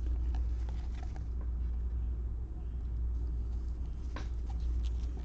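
Steady low hum with faint, scattered soft ticks of trading cards and plastic sleeves being handled by gloved hands, one a little clearer about four seconds in.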